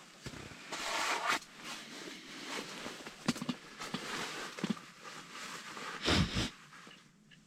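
Handling noise: rustling and scraping, as of clothing and fishing gear being moved, with a few sharp clicks and a dull thump about six seconds in.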